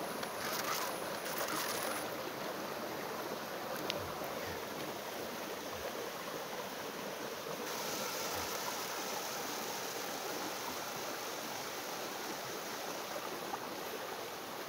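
Small river rushing over little waterfalls: a steady, even rush of water. A faint high whine stops about two seconds in.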